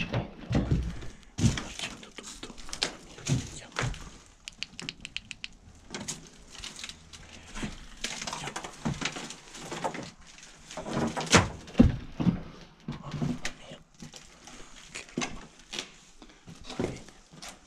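A string of irregular knocks, clicks and thuds in a small room, loudest in a cluster about eleven to twelve seconds in.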